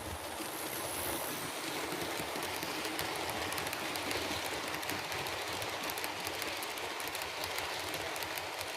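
Model steam locomotive with a DCC sound decoder running on the layout: a steady hiss of sampled steam with many rapid small clicks of wheels on track. It swells over the first second or so.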